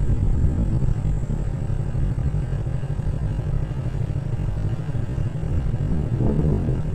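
Wind buffeting the microphone: a steady low rumble with no distinct tones. A brief, slightly brighter sound rises over it about six seconds in.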